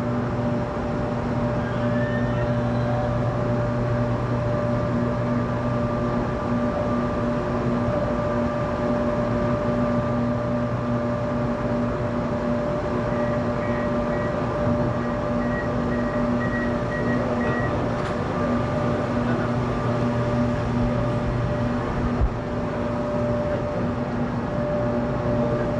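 Electric light rail train at a station platform, a steady electrical hum over a low rumble that holds one pitch throughout.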